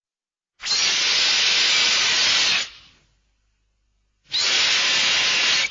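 Showa-era Mechagodzilla film sound effect: a steam-like hiss in two bursts of about two seconds each, each cutting off sharply.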